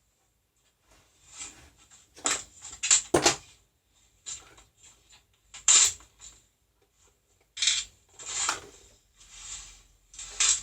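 Packaging of a drill kit being opened and handled: an irregular run of rustles, clicks and knocks, several of them sharp.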